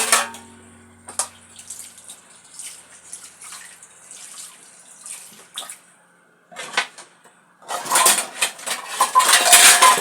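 Dishes and cutlery clinking and clattering in scattered knocks, with a denser run of clatter and rushing noise in the last two seconds.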